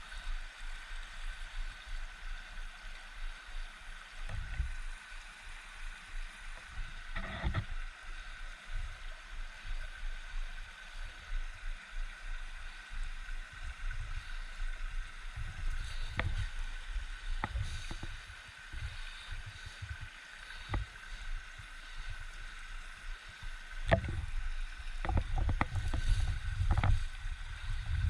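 Wind and movement rumble on a head-mounted action camera, with a faint steady whine throughout. A few sharp clicks come about two-thirds of the way in and again near the end, where the rumble grows louder.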